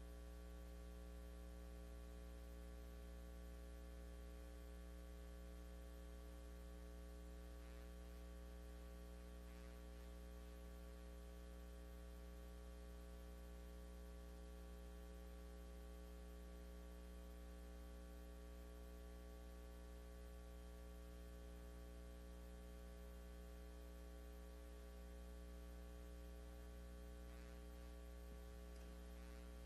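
Near silence apart from a steady low electrical mains hum with several fainter steady tones above it, and a few faint brief noises.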